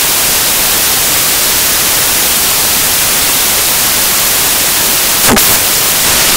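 Loud, steady static hiss filling the whole sound, with a single brief click and short falling chirp about five seconds in.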